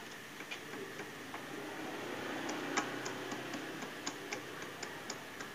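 Light metallic ticking from a hand tool being worked on a part inside a Yamaha Mio J scooter's engine case: a few scattered ticks, then an even run of about four a second through the second half, the loudest near the middle.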